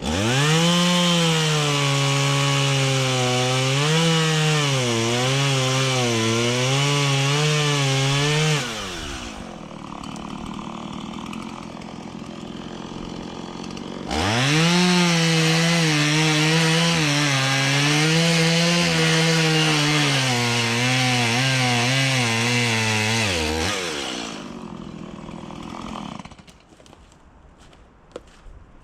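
Two-stroke chainsaw run at full throttle through two cuts in downed timber, its pitch wavering as the chain bogs in the wood, dropping back to idle between the cuts. It returns to idle after the second cut and shuts off near the end.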